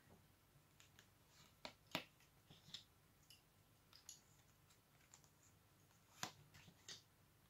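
Faint scattered clicks and flicks of a deck of fortune-telling cards being handled and shuffled, with sharper card snaps about two seconds in and again at about six seconds.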